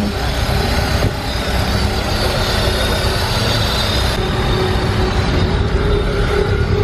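Steady rumble of car engines running, with no speech.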